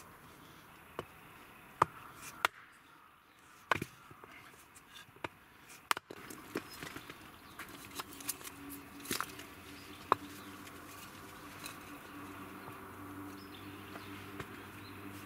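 Rubber mallet knocking on the back of a hatchet to split small pieces of wood on a log chopping block: about a dozen separate sharp knocks at an uneven pace, the loudest about two seconds in and again near ten seconds.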